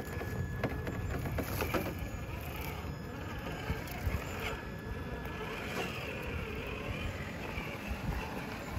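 Traxxas TRX-4 radio-controlled scale crawler's brushed electric motor and gearbox whirring as it creeps over rocks, with its tyres scraping and clicking on the stone.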